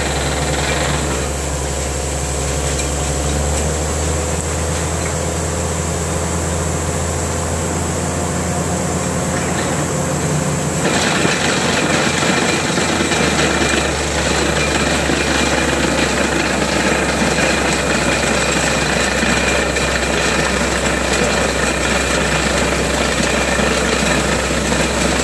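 Truck-mounted borewell drilling rig running steadily during ODEX drilling: a constant low engine hum with a broad rushing hiss of air and cuttings blowing from the hole, which grows much louder about eleven seconds in.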